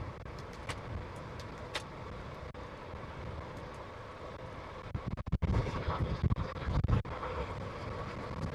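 Wind rushing over the microphone, with tyre noise, as a bicycle runs fast downhill. The low buffeting grows stronger and gustier from about five seconds in.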